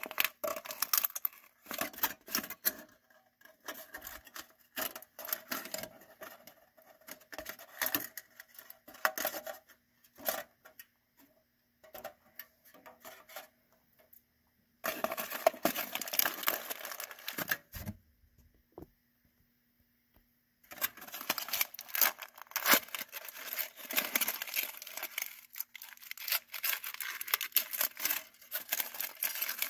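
Aluminium foil crinkling and crackling as fingers peel it away from a melted PVC figure, in irregular stretches of dense crackle broken by short pauses.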